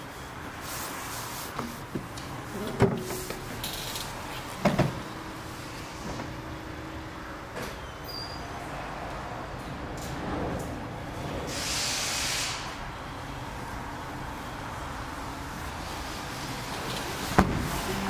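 BMW 3 Series saloon's boot lid being opened and shut: a few knocks and latch clicks, the sharpest a single click near the end, with a brief hiss about halfway through.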